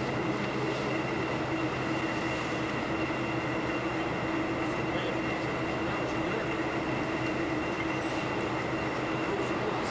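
Steady industrial machinery din: a constant mechanical rumble with a steady low hum and a high whine, as of plant conveyors and processing equipment running.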